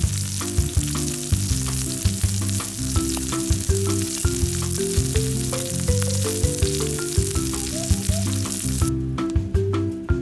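Food sizzling as it fries in a pan, an even hiss that cuts off suddenly about nine seconds in, under background music that plays throughout.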